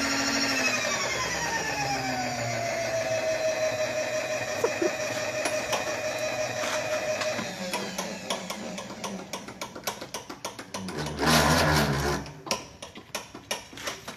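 A machine tool's motor whines steadily, drops in pitch during the first two seconds, and then runs at a lower steady pitch until it stops about seven and a half seconds in. Scattered clicks and light knocks follow, and a short loud rushing noise comes about eleven seconds in.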